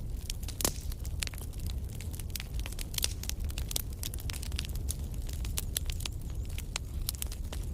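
Wood campfire crackling, with many sharp snaps and pops at irregular intervals over a low, steady rumble.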